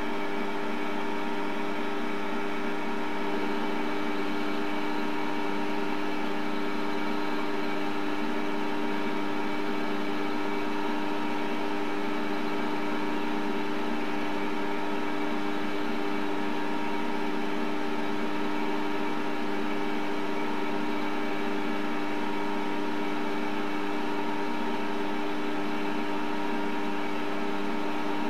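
Optimum D180x300 mini lathe running at a steady speed, its drive giving a constant multi-tone whine, while a carbide-insert tool takes a turning cut on a tapered metal workpiece.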